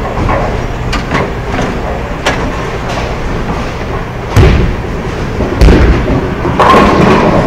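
Bowling alley: bowling balls knocking and thudding, including a ball coming back on the ball return and knocking against the ball already in the rack. Sharp knocks come in the first half and two heavy thuds in the second half.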